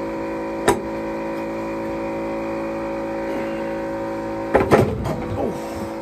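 A small electric pump hums steadily while a breaker bar and socket tighten an anode rod into a water heater tank. There is a sharp metal click about a second in, and near the end a clatter of metal as the socket slips off the rod.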